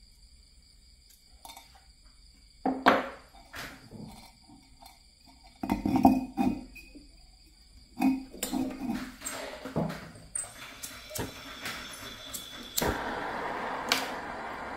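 Sharp knocks and clatters of a brick and tools being handled on a concrete floor. Near the end a gas torch lights and burns with a steady hiss, heating a copper-wire fish hook.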